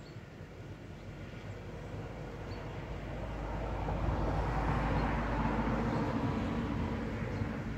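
A small van passes on the road: its engine and tyre noise swells, peaks about halfway through, then fades.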